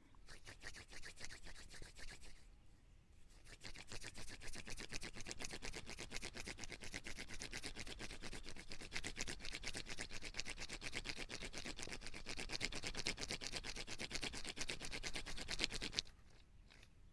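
Two palms rubbing and crushing a fleshy Caralluma adscendens succulent stem between them in rapid back-and-forth strokes, a steady rubbing rasp. It eases off briefly about two seconds in and stops about a second before the end. The stem is being bruised soft so it can be eaten.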